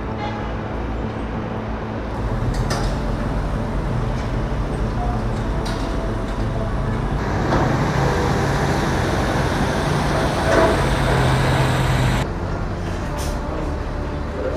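Steady outdoor rumble of road traffic and engines, stepping up in level about two seconds in and dropping suddenly near the end.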